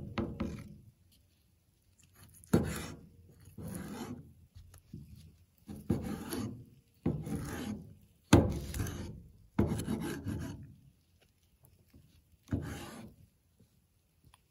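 A series of rough scraping or rasping strokes, about eight, irregularly spaced one to two seconds apart, each starting sharply and fading.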